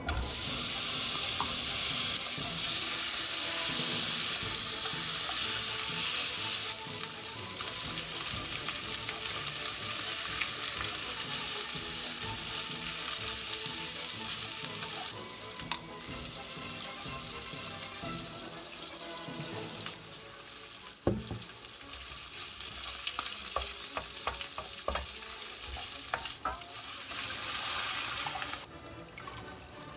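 Food sizzling as it fries in a pan: a steady hiss, loudest for the first seven seconds or so, with light clicks of a utensil on the pan in the second half. The hiss drops away near the end.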